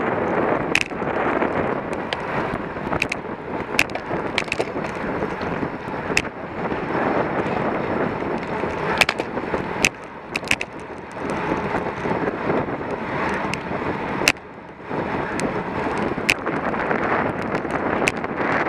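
Wind rushing over the microphone of a camera on a bicycle at racing speed, with scattered sharp clicks and knocks throughout. The rush briefly drops twice, about ten and fourteen seconds in.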